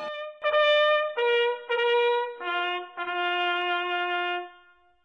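Solo trumpet playing a slow call of several notes that step downward in pitch, ending on a long held note that fades out.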